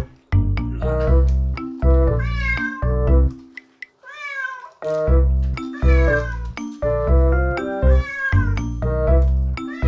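A wet long-haired cat meowing again and again, drawn-out rising-and-falling cries of protest while its hind legs are lathered and washed, over bouncy background music.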